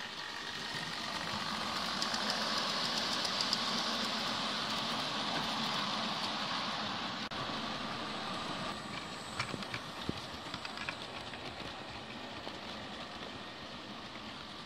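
OO gauge model train running past on the track: a steady rolling whir of wheels on rail that swells and then eases off, with a few sharp clicks over rail joints about nine to eleven seconds in.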